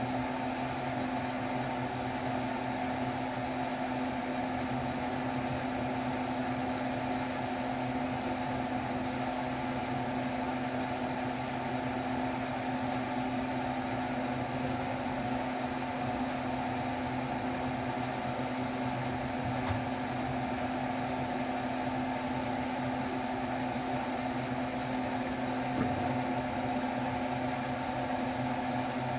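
Steady electric fan motor humming in a kitchen, with a soft knock near the end as the cast iron skillet is handled.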